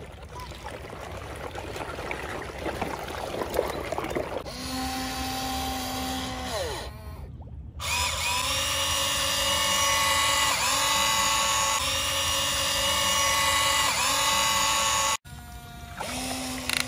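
Huina remote-control toy excavator's small electric gear motors whining as the arm and bucket move. The whine comes in several back-to-back runs, each starting with a short glide in pitch. It follows a few seconds of noisy rushing at the start.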